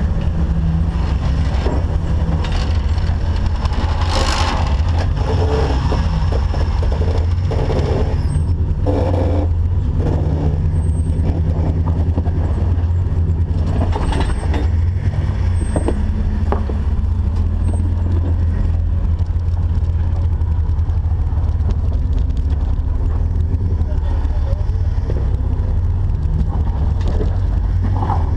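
Off-road Jeep's engine running with a heavy, steady low rumble, with a few sharp knocks and scrapes.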